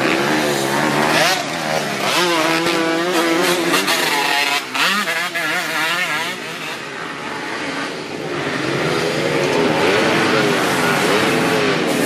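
Kawasaki Ninja-engined trail motorcycle running with its pitch rising and falling in repeated revs. It eases off about halfway through, then picks up again near the end.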